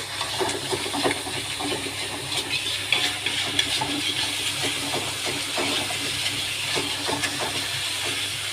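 Food sizzling in hot oil in a pan: a steady hiss with many small crackling pops.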